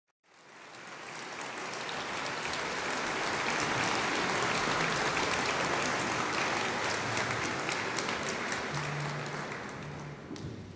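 A large theatre audience applauding. The clapping swells in over the first couple of seconds and dies down near the end.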